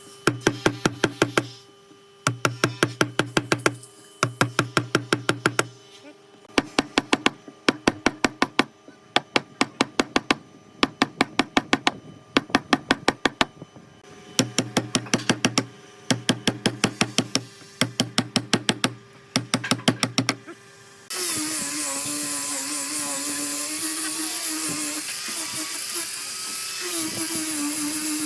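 Power tool working wood: repeated bursts of rapid tapping, each about a second and a half long and coming every two seconds. About 21 seconds in, a steady whining tool starts running, its pitch wavering as it cuts.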